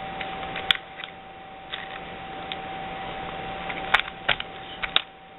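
Scattered small clicks and taps of a tiny Phillips screwdriver working at a screw in a netbook's plastic screen bezel, a few irregular ticks over several seconds, over a faint steady tone.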